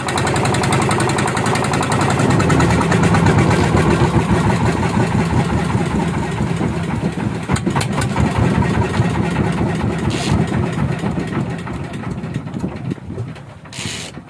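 Small wooden fishing boat's engine running steadily under way. It comes in abruptly, grows louder over the first couple of seconds, and fades near the end.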